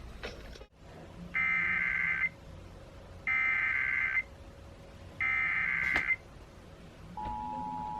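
Emergency Alert System data tones: three harsh digital header bursts, each about a second long with a second's gap between them, marking the start of a new alert. About seven seconds in, the steady two-tone EAS attention signal begins.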